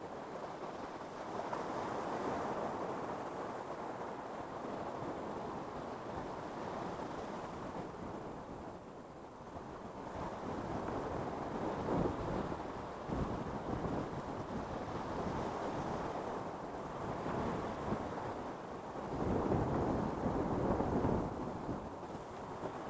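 Ocean surf breaking on a beach, a continuous wash that swells and subsides as waves come in, with the biggest surges about halfway through and again near the end, with some wind noise on the microphone.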